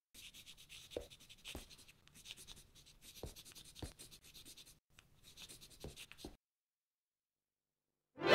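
Faint, scratchy strokes of handwriting in quick succession, with a few small taps among them. The strokes stop a little after six seconds in, and music comes in at the very end.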